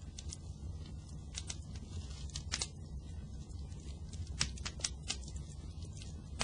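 Fire burning: a steady low rumble with many irregular crackles and pops, a few of them sharper and louder.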